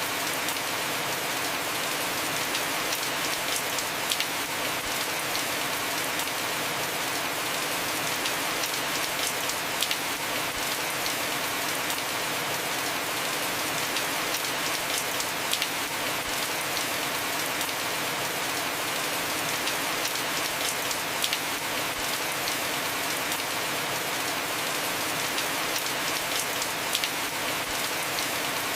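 Heavy rain falling steadily on a roof, an even hiss dotted with the sharper taps of single drops.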